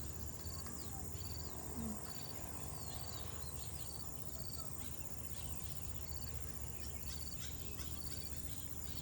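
Outdoor natural ambience: an insect repeats a short high trill roughly every second over a steady high insect drone, with scattered brief bird chirps above a low steady rumble.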